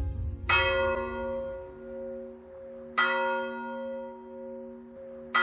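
A bell struck three times, about two and a half seconds apart, each stroke ringing on with a slowly wavering hum.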